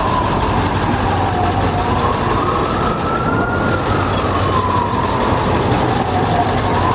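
An emergency-vehicle siren wailing slowly, its pitch falling and rising about once every five seconds. Under it is the steady low rumble of a large idling engine, most likely the school bus's.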